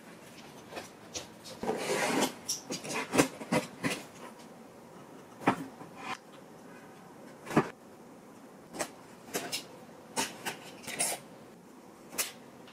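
Cardboard shipping box and product packaging being opened and handled: rubbing and scraping of cardboard, with a series of sharp taps and knocks as boxes and packaging are set down on a table.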